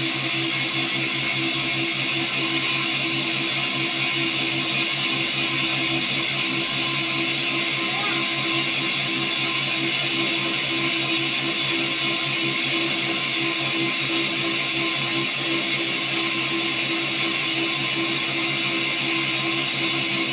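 Battery-powered cotton candy machine running steadily, its spinning head and motor giving an even hum with a hiss over it and no change in pitch.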